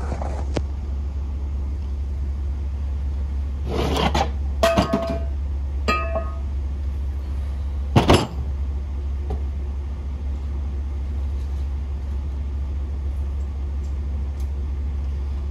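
Metal engine parts clinking and knocking as an aluminium cylinder head with its rocker arms is handled on a workbench: a few clinks about a third of the way in, two of them ringing briefly, then one louder knock about halfway. A steady low hum runs underneath.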